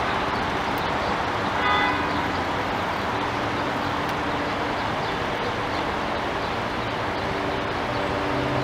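Steady city traffic noise, with a brief car horn toot about two seconds in.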